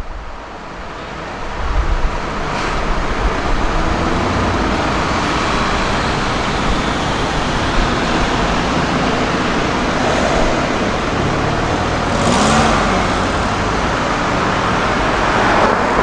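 Street traffic noise: a steady rush of passing cars and buses, building up about two seconds in and then holding steady.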